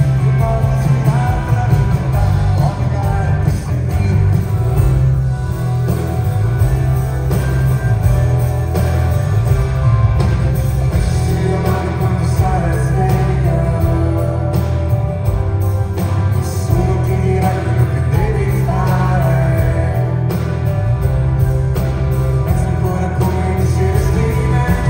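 Live rock-pop band playing in a theatre, recorded from the audience: a strong bass line with electric guitar, keyboards and drums, and singing.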